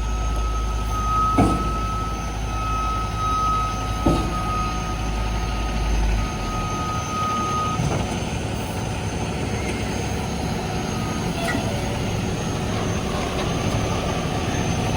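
Heavy road-paving machinery running steadily, with a deep engine rumble that drops away about six seconds in. A steady high whine stops just before eight seconds, and a few sharp metallic knocks come along the way.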